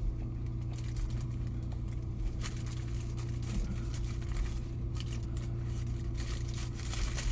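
Steady low hum of a running vehicle engine, with a few brief rustles and clicks over it.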